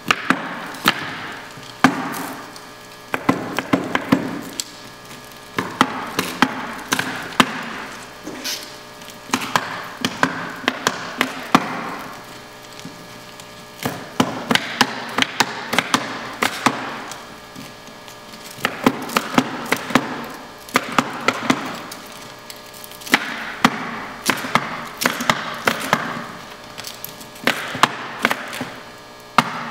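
Liquid nitrogen sputtering out of a dewar's withdrawal hose: a hissing rush that surges in waves every few seconds, laced with many sharp crackling snaps.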